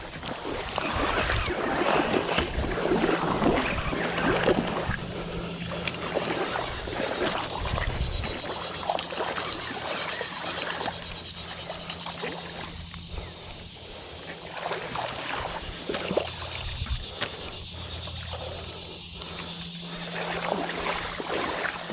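Shallow river water splashing and sloshing close by, loudest in the first half, over a steady low hum.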